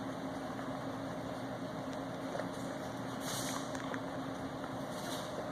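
Steady machine hum with a constant low tone, and a couple of brief hissy rustles after about three seconds.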